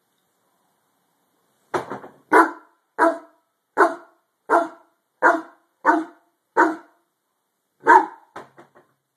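Harlequin Great Dane barking at something under the bed: after a short quiet start, a run of about nine deep, loud barks roughly one every 0.7 seconds, then after a brief pause one more loud bark followed by three short, quieter ones.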